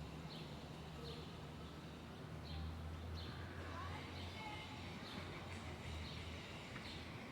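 Faint city ambience: a steady low hum of traffic under a small bird chirping, with short high chirps about once or twice a second.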